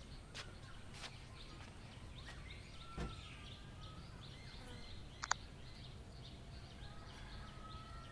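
Faint ambience of small birds chirping and twittering over a low steady background rumble. A soft thump comes about three seconds in, and a sharp double click a little after five seconds.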